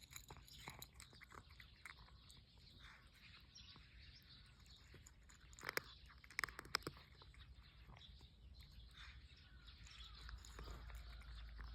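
A cat chewing its food: faint small crunches and clicks, with a few louder ones about six seconds in.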